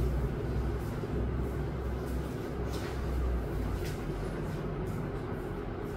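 Steady low hum and rumble of room background noise, with two faint brief scratching sounds about three and four seconds in.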